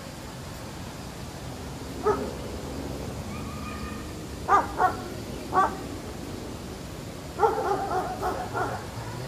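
A dog barking: one bark about two seconds in, three sharp barks around the middle, and a quick run of barks near the end.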